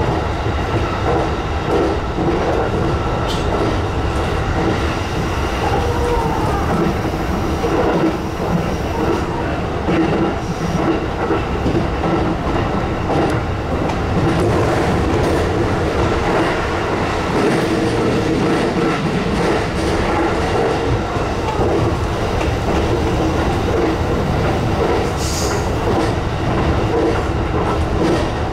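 JR East E233 series electric train running at speed, heard from the driver's cab: wheels rolling on the rails with a steady hum and scattered knocks, through a tunnel for part of the way.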